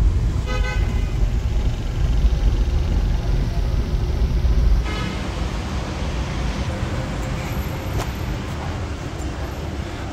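Cabin noise of an old Suzuki car on the move: a steady low engine and road rumble, with a car horn tooting briefly about half a second in and again about five seconds in. After that the rumble gives way to a quieter, even indoor hubbub.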